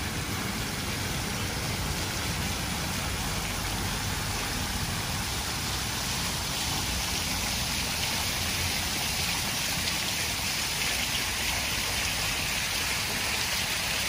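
Water from a public fountain's jets splashing into its basin: a steady hiss that grows louder about halfway through as the jets come close. A low, steady rumble runs underneath.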